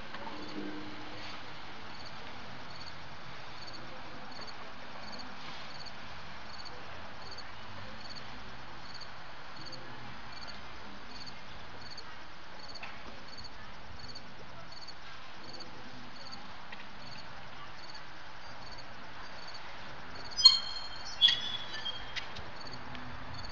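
Steady background chirping of insects, like crickets. Two sharp knocks come about a second apart near the end.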